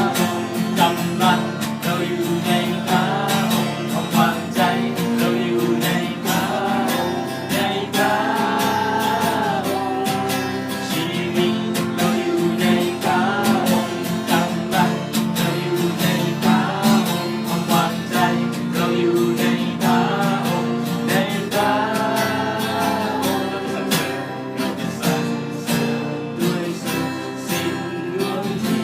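Music led by a strummed acoustic guitar, with a melody line carried over the chords.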